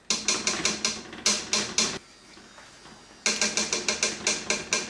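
A metal spoon rattled rapidly against the rim of an aluminium pot, about six sharp taps a second, to knock a lump of fat off it. The taps come in two runs, with a pause of about a second in the middle.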